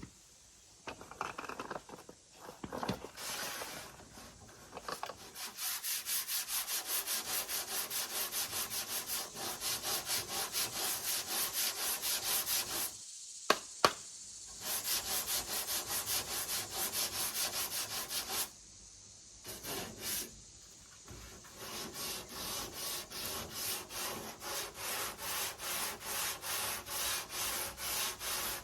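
Sandpaper rasping over cured Bondo body filler on a pickup's bedside panel in rhythmic back-and-forth strokes, about two to three a second, stopping briefly twice, with two sharp clicks in the first pause.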